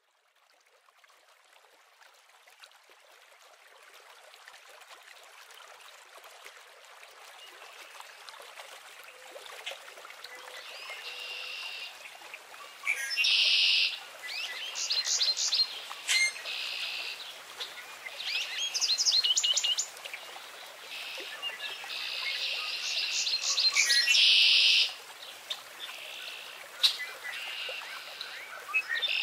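Songbirds chirping and trilling in repeated short phrases over a steady background hiss. The sound fades in from near silence over the first several seconds, and the calls come in clusters from about a third of the way in.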